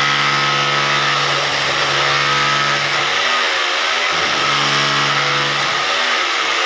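Hammer drill motor running at high speed while cutting. Its pitch sags and wavers twice, around the middle and again near the end, as the cut loads it.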